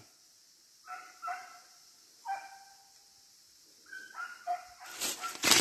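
Hunting dog baying faintly while trailing game: about five short barks over a few seconds. Near the end, loud rustling of footsteps through leaf litter and brush starts.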